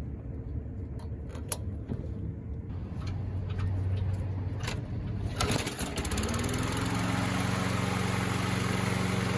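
Walk-behind lawn mower's small engine running. About halfway through its speed rises and then settles into a steady run. It is being run on the fuel left in the carburetor and fuel line after the tank was drained, until it dies.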